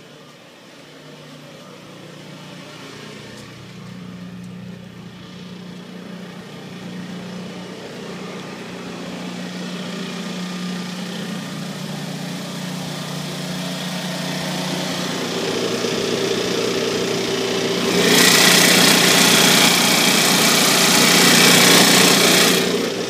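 Generac Guardian 8 kW natural-gas standby generator running steadily on backup power after its automatic transfer switch has switched over, the engine hum growing louder as it is approached. About three quarters through, a loud rushing noise joins it for about four seconds, then drops away.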